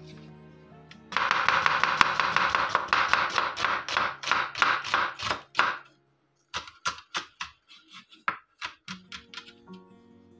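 Kitchen knife chopping onion on a wooden cutting board: a quick, dense run of strokes, then after a brief pause slower, scattered strokes as the onion is diced fine.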